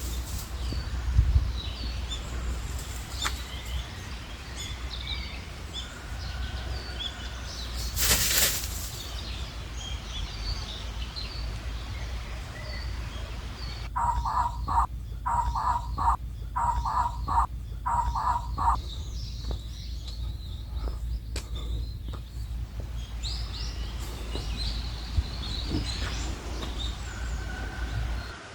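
Small birds chirping in woodland over a steady low rumble of wind or handling noise. About halfway through comes a run of about eight short, evenly spaced pitched calls, a little under two a second.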